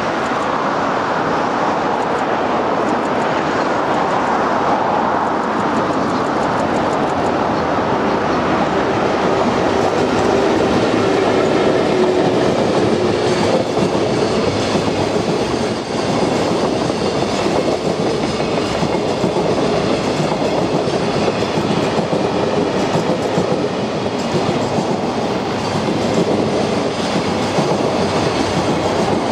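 Freight train of container wagons running past close by, with a steady heavy rumble and the clickety-clack of wheels over the rail joints.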